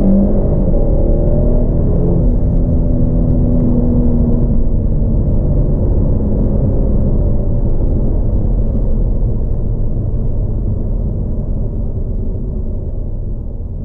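Kia Stinger GT's 3.3-litre twin-turbo V6 under full acceleration, heard from inside the cabin: the engine note rises for about the first two seconds, then turns into a steadier rumble that slowly gets quieter toward the end.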